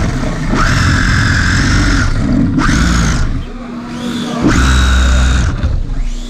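Electric motor of a small 3D-printed OpenRC car whining under throttle in three bursts, the first about two seconds long and the others shorter, with a low rumble of the car running over the concrete floor, heard from a camera mounted on the car.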